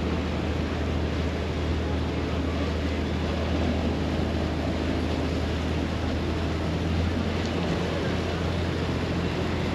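Passenger riverboat's diesel engine running steadily with a low drone, under the rush of water in the boat's wake.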